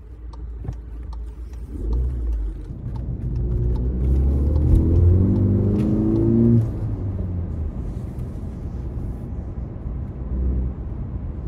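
Volkswagen car engine accelerating, heard from inside the cabin: the revs climb for about four seconds, then drop suddenly about six and a half seconds in, as at a gear change, and settle into a steady drone under way. A few light clicks near the start.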